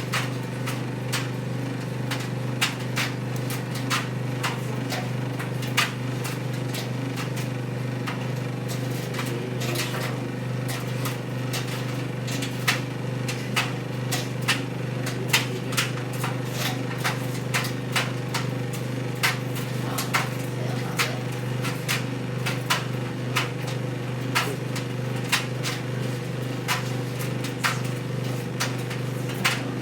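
White Knight C44A7W tumble dryer running: a steady motor hum with sharp clicks and knocks coming unevenly about once or twice a second.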